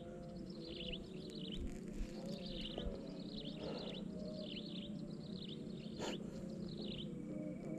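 Repeated high chirping calls, each a quick falling sweep, about one to two a second, over a low steady hum; a single sharp click about six seconds in.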